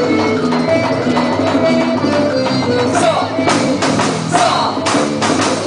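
Music for a quadrilha junina dance, with sustained melody notes and percussion hits growing stronger in the second half.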